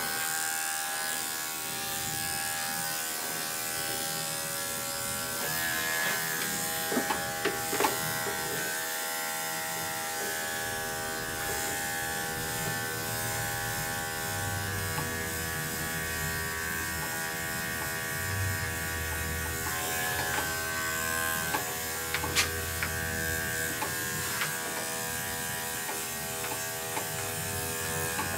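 Andis five-speed electric pet clipper running steadily while clipping a small dog's coat, with a few brief clicks in between.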